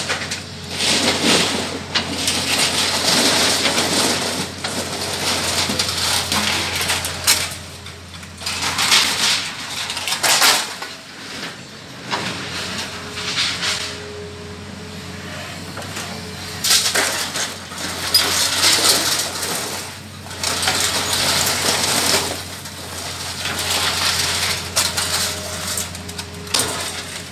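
Scrap iron clattering and crashing in repeated bursts as an excavator's lifting magnet grabs it from a pile and drops it into a steel roll-off bin. Underneath, the excavator's engine runs with a steady low hum.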